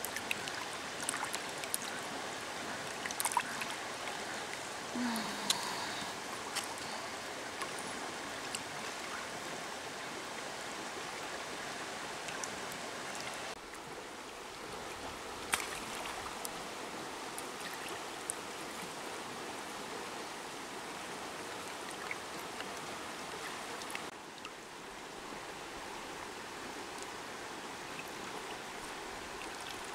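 Shallow stream running over stones: a steady rush of water with a few faint clicks. The level drops a little twice along the way.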